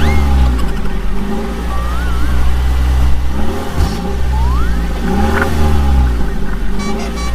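Vehicle engine revving up and down over and over above a steady low hum, with a few thin whistle-like tones sliding up in pitch.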